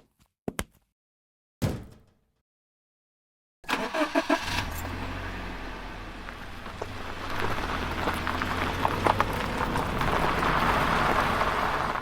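A few short sharp knocks, then after a pause a car engine cranks and starts about four seconds in and keeps running, growing louder in the second half.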